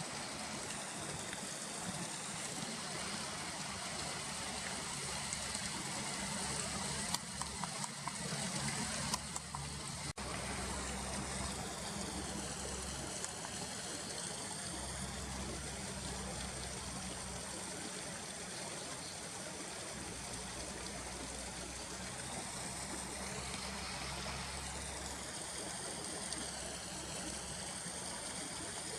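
River water flowing with a steady rushing noise, over a low steady hum, with a few small clicks about a third of the way in.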